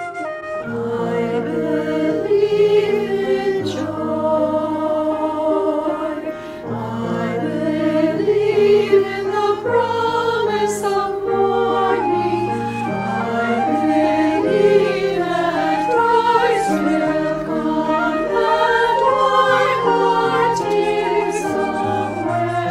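Mixed church choir singing a choral anthem in parts, accompanied by flute and piano.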